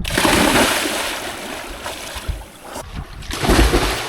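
Water splashing and churning in a lake as people swim in it. The sound breaks off briefly about three seconds in, then a heavy low thump follows.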